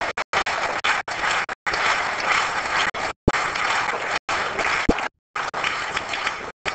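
Audience applauding, the sound chopped by frequent abrupt split-second dropouts to silence.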